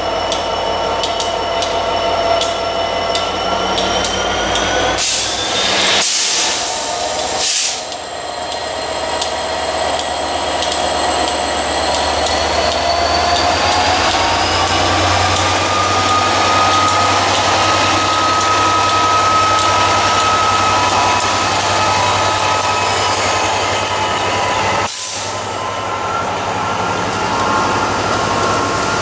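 Class 67 diesel locomotive running slowly through the station hauling coaches, its engine's pitch rising steadily partway through as it powers up. Short bursts of hiss come in a few times.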